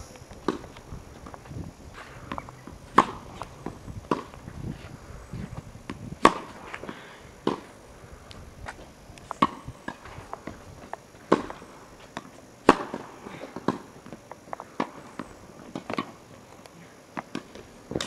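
Tennis rally: the ball struck by rackets, a sharp pop every one to two seconds, with fainter ball bounces on the court in between.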